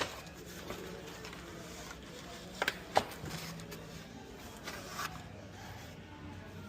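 A few light clicks and taps from bicycle parts being handled while a dropper seat post and its cable are fitted into the frame, with three close together about two and a half to three seconds in, over a low steady hum.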